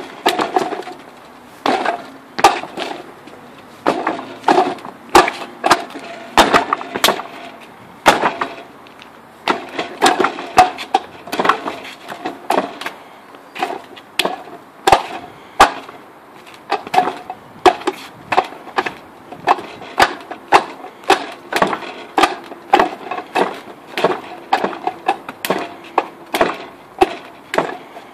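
Wing Chun wooden dummy being struck in a free-flow form: a rapid, irregular run of hard wooden knocks and clacks as hands and forearms hit its arms and trunk, several a second, with a brief pause about eight seconds in.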